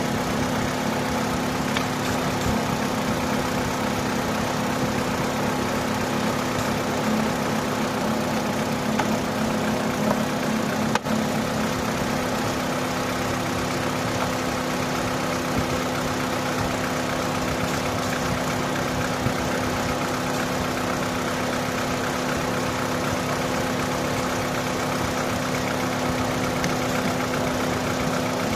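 Opel Astra petrol engine idling steadily after a hard crank-no-start, now running smoothly.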